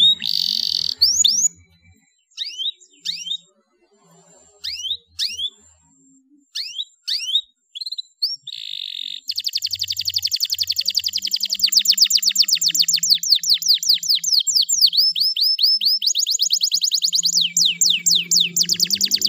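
Domestic canary singing. A brief fast trill is followed by a string of separate downward-sweeping chirps with pauses between them, then a short buzzy note about eight seconds in. From about nine seconds a long, unbroken rapid trill runs on, changing speed and phrase several times.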